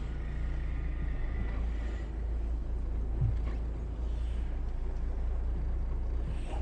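Twin diesel engines of a Bayliner 4788 motor yacht running at low speed while it manoeuvres out of its slip, a steady low drone with no change in revs.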